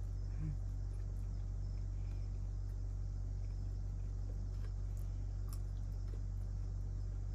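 A few faint, scattered crackles and snaps of peanut shells being split open by hand, over a steady low hum.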